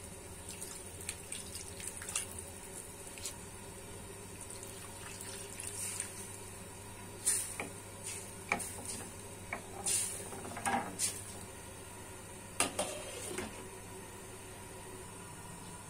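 Kitchen work sounds: scattered light taps and clinks, some with short watery tails, over a faint steady hum.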